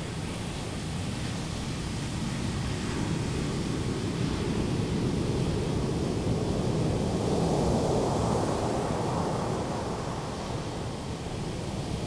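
Ocean surf breaking and washing up a sandy beach, one wave swelling to its loudest about two-thirds of the way through and then easing off.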